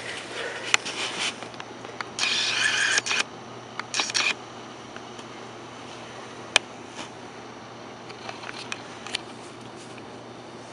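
Camcorder autofocus motor whirring in two short bursts as the lens hunts for focus, with a single sharp click about six and a half seconds in, over a steady low hum.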